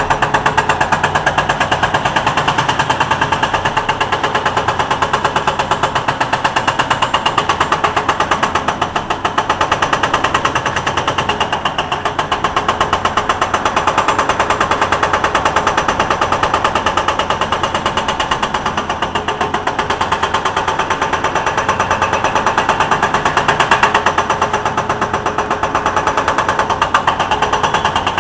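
Hydraulic breaker hammer on heavy equipment pounding steadily with a rapid, even train of blows.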